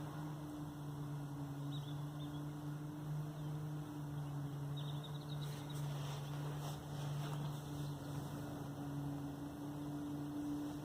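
A steady low droning hum in the sky, holding several fixed pitches at once, with faint bird chirps twice and a short rustle near the middle.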